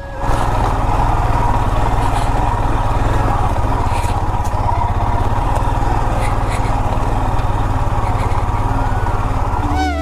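Motorcycle engine running steadily while riding, with a rapid, even pulsing.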